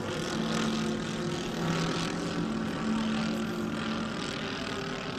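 Propeller engines of a giant-scale radio-controlled B-17 bomber model flying overhead: a steady multi-engine drone whose pitch shifts slightly as it passes.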